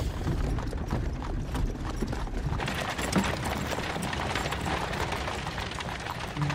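Horse-drawn carriage on the move: horses' hooves clip-clopping over a steady low rumble of the wheels on a dirt road.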